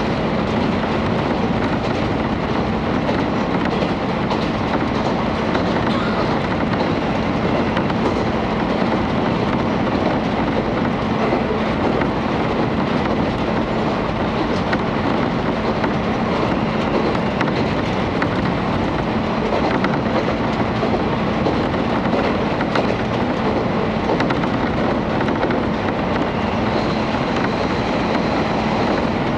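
KiHa 31 diesel railcar running along the line, heard from inside the passenger cabin. The steady noise of the wheels on the rails sits over a low, even drone from the diesel engine.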